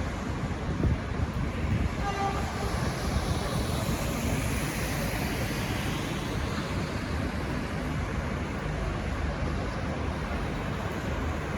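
Train running on the tracks: a steady rumble and rail noise, mixed with wind buffeting the microphone. A brief faint tone sounds about two seconds in.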